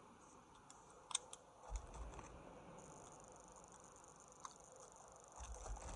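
Faint scattered clicks and a couple of soft low thumps over near silence.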